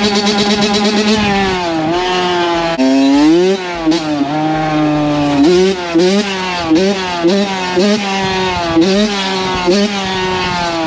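Dirt bike engine being revved over and over, its pitch rising and falling with each twist of the throttle from about a second in.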